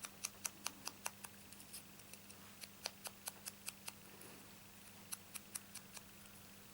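Quiet, quick, light taps of a sponge dauber inking the edges of a small punched paper flower. About five taps a second, in three short runs.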